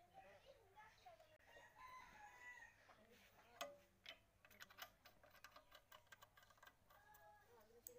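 Near silence, with a rooster crowing faintly in the distance, one long crow about a second and a half in and another near the end. A few light metallic clicks come from a spanner working the fuel-injector pipe nut.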